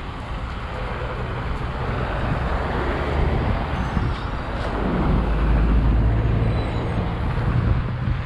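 City road traffic passing, with a low rumble that swells as a vehicle goes by close about five seconds in.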